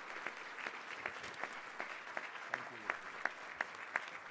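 Audience applauding, with a few distinct claps close by at about three a second standing out from the general clapping.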